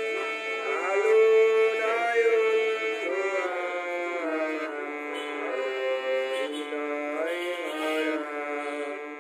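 Hand-pumped harmonium playing a melody: reedy sustained notes moving from one pitch to the next every half second or so.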